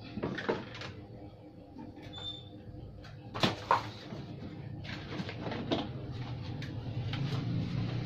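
Cardboard packing being handled and pulled out of the plastic tub of a portable washing machine: scraping and rustling with scattered clicks, and two sharp knocks close together about three and a half seconds in.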